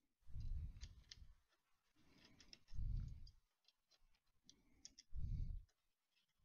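Small, light metallic clicks and taps from the rotary's rail and bracket hardware being handled and fitted. Three low, muffled rumbles are louder than the clicks: one just after the start, one about three seconds in and one about five seconds in.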